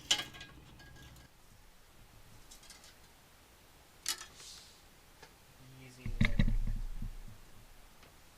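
Small clicks and handling noise from fitting a screw to the optical drive in a metal PC case: a sharp click about four seconds in, then a louder burst of handling noise around six seconds in.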